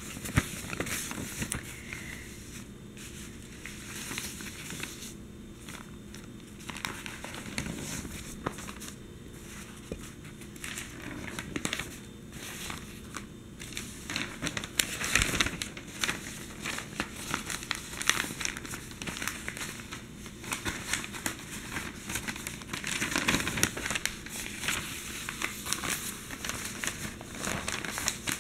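Newspaper pages rustling and crinkling as the sheets are handled and turned, with louder rustles about halfway through and again about three quarters of the way in.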